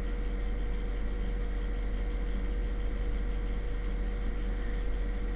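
Steady background hum and hiss with a faint constant whine, unchanging throughout; no clicks or other events.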